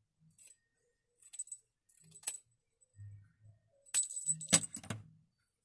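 A few short handling noises, light scrapes and clicks, as a dark-green fabric strip is picked up and laid on a patchwork block. The busiest cluster comes about four seconds in.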